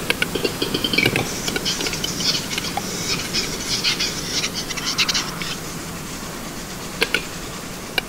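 Male western capercaillie (wood grouse) giving its display song, a rapid run of dry clicks, with a couple of louder single knocks.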